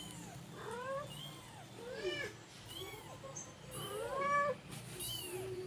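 Newborn kitten mewing in short, high, rising-and-falling cries, about six of them, the longest and loudest about four seconds in.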